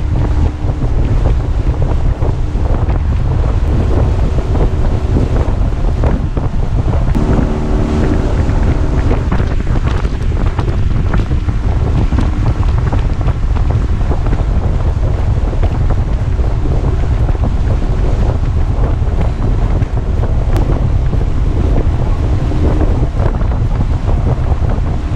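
Aluminum boat running at speed under a Honda 8 hp twin-cylinder four-stroke outboard: heavy wind buffeting on the microphone and the hiss of spray off the hull, with a faint steady engine tone that comes and goes.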